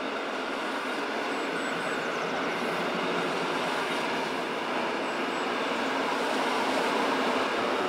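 Rhaetian Railway Ge 4/4 II electric locomotive and its train of Einheitswagen I passenger coaches running past, making a steady rolling noise of wheels on the metre-gauge track.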